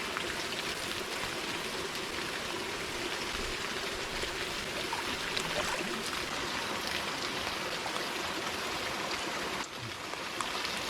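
Water pouring into a hot spring soaking pool from a warm waterfall and a hot-water pipe: a steady rush of running water that dips briefly near the end.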